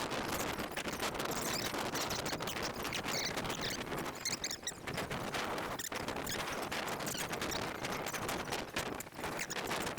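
Strong gusting wind buffeting a GoPro's microphone: a dense, continuous crackling with a couple of brief lulls.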